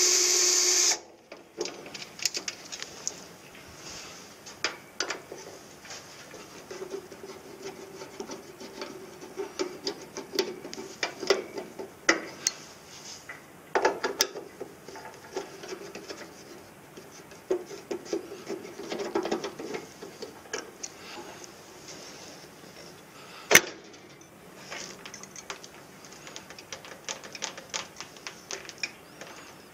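A Bosch cordless drill-driver runs briefly and cuts off about a second in. Then scattered clicks, scrapes and rubbing follow as screws are turned by hand with a screwdriver and the sheet-metal panels and copper-pipe parts of an air-conditioner unit are handled, with one sharp click about three-quarters of the way through.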